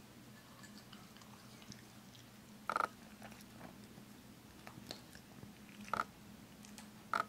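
Norfolk terrier chewing dry kibble: soft small clicks throughout, with three short louder crunches, one about three seconds in, one about six seconds in and one near the end. A faint steady low hum runs underneath.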